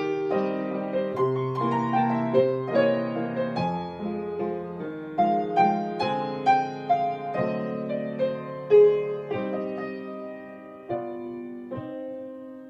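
Piano playing the closing bars of a waltz, getting gradually softer, ending on a final chord about twelve seconds in that is held and left to ring away.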